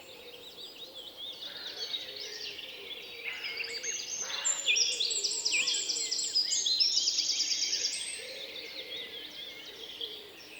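Several songbirds singing and calling at once: overlapping chirps and whistles, with fast repeated-note trills around the middle.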